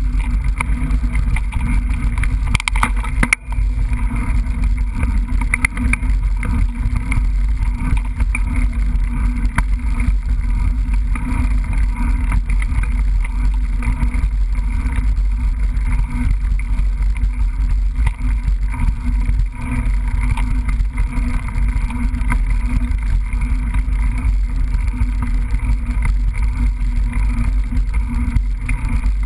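Steady loud rumble and wind buffeting on a GoPro action camera riding along on a mountain bike, with a few sharp knocks about three seconds in.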